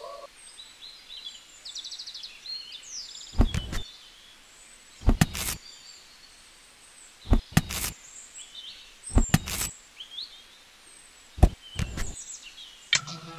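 Light knocks and taps, several in close pairs a few seconds apart, from small hand-held pieces: wooden mould strips worked off a small cement slab and a model transformer set down on it. Faint bird chirps can be heard behind them, mostly in the first half.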